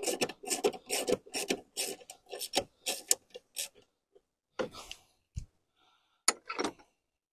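Ratchet rasping in quick back-and-forth strokes, about four a second, as a 10 mm wiper-motor mounting bolt is undone. It stops after about three and a half seconds, followed by a scrape, a low knock and a couple of sharp clicks as the tool is withdrawn.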